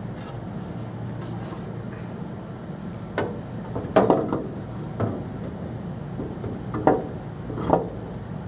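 An AC outdoor unit's fan blade being handled and fitted onto its motor shaft: a handful of knocks and scrapes, the loudest about four seconds in, over a steady low hum.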